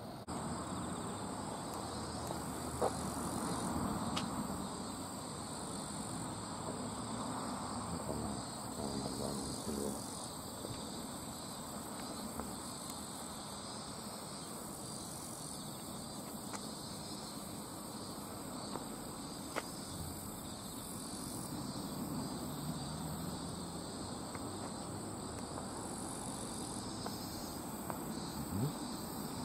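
Insects in the grass giving a steady high-pitched trill, over a low rumbling noise.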